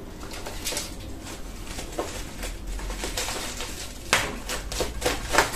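Plastic bubble wrap on a parcel crinkling and crackling as it is handled and slit open with a utility knife. The crackles are sharpest and loudest in the last second and a half.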